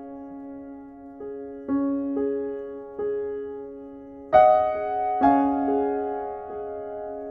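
Background music: slow, gentle solo piano, single notes and soft chords struck one after another and left to ring and fade, with two louder strikes a little past the middle.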